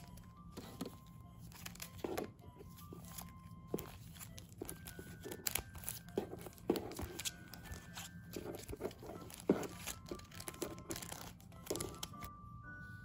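Sticker sheets crinkling and rustling as they are handled and leafed through, with irregular crisp crackles and light taps. Soft background music plays underneath.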